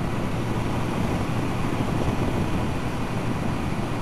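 Steady wind rush and road noise on a camera mounted on a moving motorcycle, with the bike's engine running underneath.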